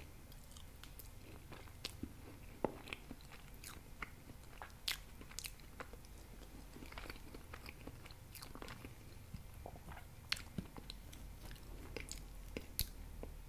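Close-miked chewing and biting, with many small sharp mouth clicks and smacks scattered irregularly as soft food is eaten off a fork.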